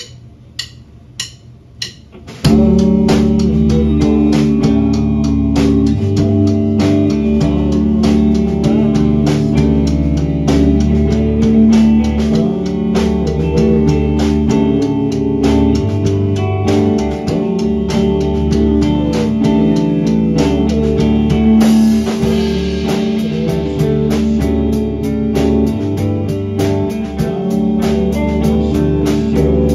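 Live band of electric guitars and drum kit starting a song: four sharp clicks, then the full band comes in about two seconds in and plays on loudly, with a cymbal wash a little past the middle.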